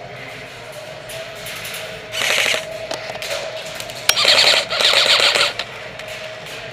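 Airsoft electric M4 rifle, an Echo1 Troy MRF-C, firing fully automatic bursts of rapid clicking shots. A short burst comes about two seconds in, then two longer bursts back to back from about four to five and a half seconds.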